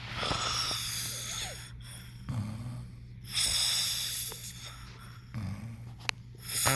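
Snoring: long airy breaths alternating with short low rumbling sounds, in a cycle of about three seconds.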